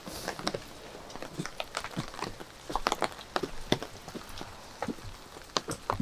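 Rain falling, with irregular drops tapping close to the microphone, mixed with footsteps.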